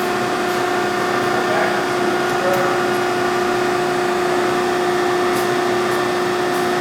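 Hydraulic pump and motor of a Clearing Niagara 175-ton press brake running, a steady hum with a constant whine over it, with a few faint clicks.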